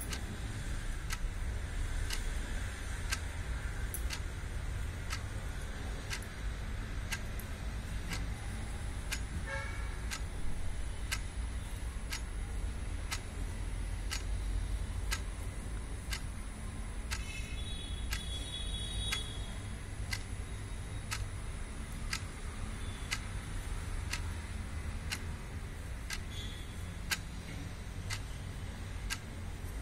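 Clock ticking steadily, about one tick a second, over a steady low rumble. A few short high chirps come in a little past halfway.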